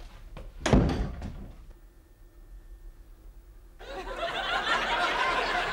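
A door opens with a single thump a little under a second in. From about four seconds, a studio audience laugh track swells into laughter.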